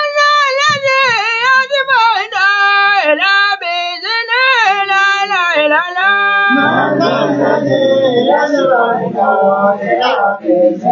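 A man singing unaccompanied in a high voice, with long held notes that glide up and down. About six and a half seconds in, the singing turns lower and denser.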